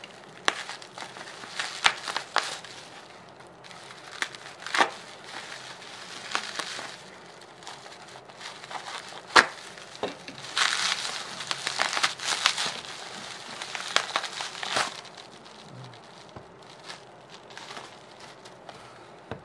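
Plastic parcel wrapping and bubble wrap crinkling and rustling as it is handled and pulled open, with irregular sharp crackles and clicks, one louder snap a little after the middle.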